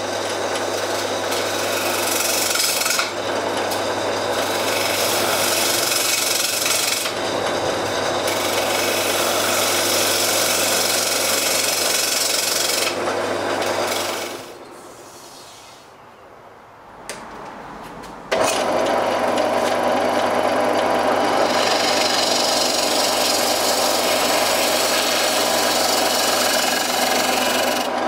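Wood lathe running, with a hand-held turning tool cutting into the face of a spinning wooden disc: a steady rasping hiss of shavings over the motor's hum. The cutting drops away for a few seconds about halfway through, then resumes.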